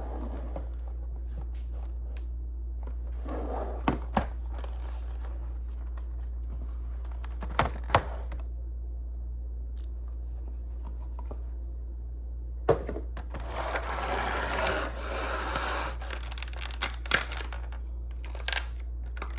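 Plastic packaging around a model locomotive being handled and unwrapped: scattered sharp clicks and knocks, and a longer crinkling rustle about two-thirds of the way through, over a steady low hum.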